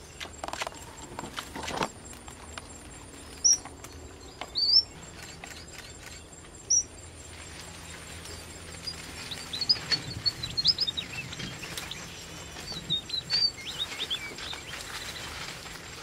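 Red avadavats (strawberry finches) calling: a few short, high single chirps, then quick runs of high twittering notes about ten and thirteen seconds in.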